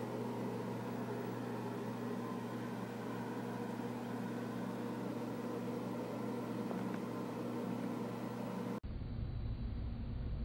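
Steady mechanical hum with a hiss over it. Near the end it cuts abruptly to a duller, lower rumble.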